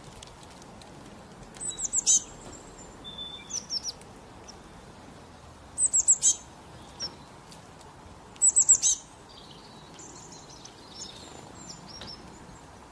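A bird singing: three loud bursts of four or five quick, high, downslurred chirps, about two, six and eight and a half seconds in, with softer, lower calls between and after them.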